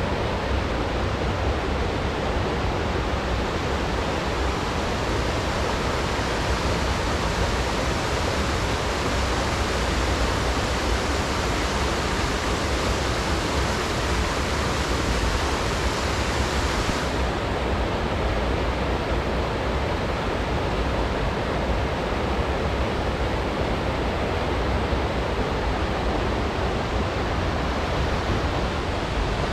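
Steady, loud rush of falling water, an even wash of noise with no break.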